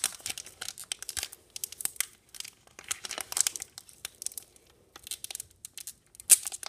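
Pokémon card booster pack wrapper crinkling and tearing as it is slowly peeled open by hand, in many short irregular crackles, with a louder crackle near the end.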